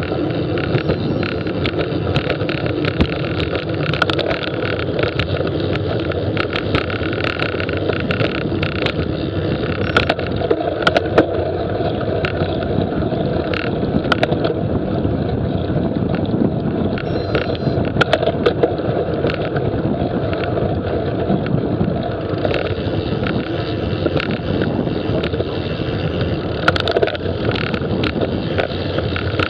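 Wind rushing over the microphone of a camera riding along on a bicycle, with steady road noise and scattered sharp clicks and rattles from the bike.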